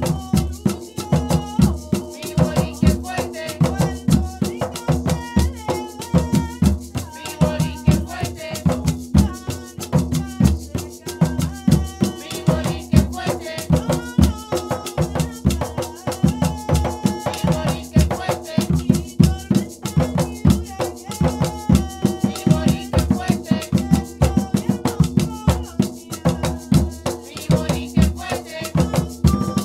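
Live Afro-Puerto Rican bomba: barril hand drums struck in a fast, driving rhythm, with a maraca shaking, sticks clacking on a wooden cuá, and sung vocals from lead and chorus.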